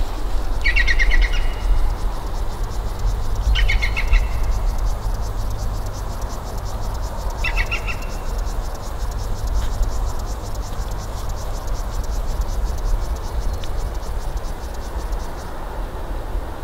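A songbird calling three times, each call a short burst of rapid repeated high notes, a few seconds apart. Under it runs a steady low rumble, with a faint fast high ticking that stops near the end.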